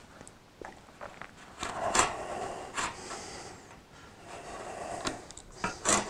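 Stock steel fork spring of a Yamaha MT-07 being drawn up out of the fork tube, its coils clicking and scraping against the tube at irregular moments, with the loudest clicks just before the end.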